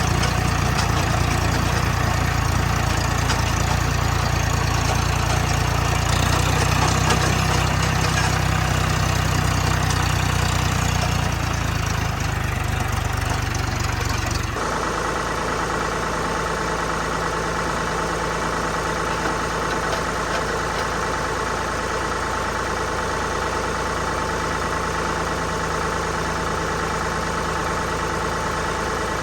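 Farm tractor engine running steadily under work. About halfway through the sound changes suddenly to a slightly quieter, lower run with a steady whine over it.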